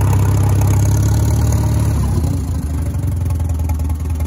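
Antique tractor's spark-ignition engine running as the tractor drives, then throttled back about halfway through, its note dropping lower toward an idle.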